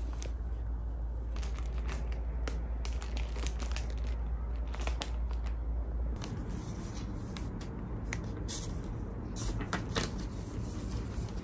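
Crinkling and rustling of a flower bouquet's paper and cellophane wrapping being handled, a stream of sharp crackles.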